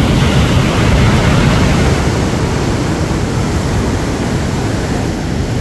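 Chenab floodwater rushing through the gates of the Head Marala barrage: a loud, steady noise of fast-flowing water.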